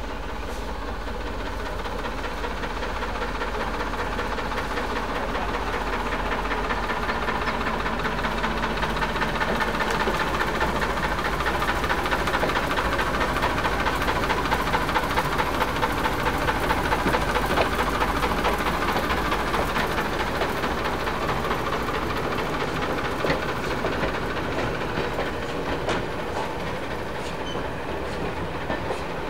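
Ruston & Hornsby 0-6-0 diesel-hydraulic shunter running under power as it hauls a rake of coaches past. The engine swells to its loudest about halfway through, then slowly fades, with the wheels clicking over the rail joints.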